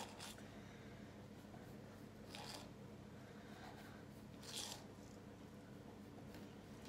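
Kitchen knife cutting strips through puff pastry filled with trout, pressing through onto parchment paper: a few faint, soft cutting strokes, the clearest about two and a half and four and a half seconds in, over a low steady room hum.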